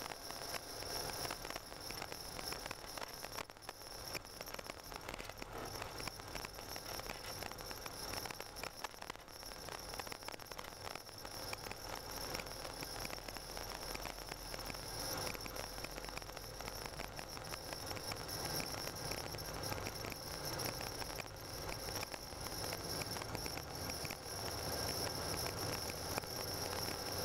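Tyre and road noise heard from inside a car driving on a snow-covered road: a steady, crackly hiss with a faint high-pitched tone over it, the low rumble growing somewhat louder in the second half.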